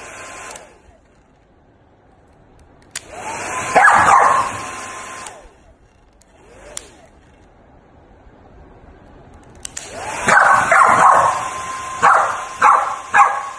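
A corgi yipping and howling at a hair dryer that is switched on and off in bursts, each burst a steady rushing hiss. The dog's calls rise in pitch, with a quick run of short barks near the end.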